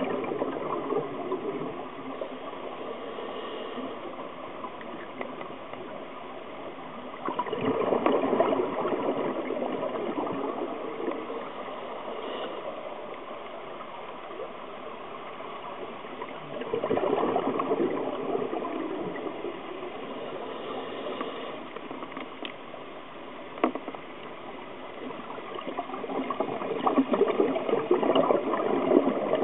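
A scuba diver's exhaled air bubbling out of the regulator, heard underwater through the camera housing. It comes in surges about every nine seconds, with a steady hiss between them and one sharp click about two thirds of the way through.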